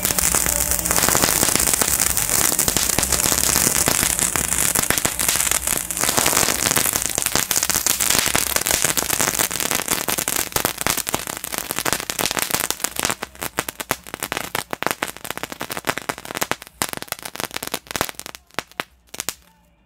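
Category 1 crackling ground fountain burning: a steady hissing spray of sparks with dense crackling. From about two-thirds of the way through, the hiss drops away into sparser, separate crackles, and it dies out near the end.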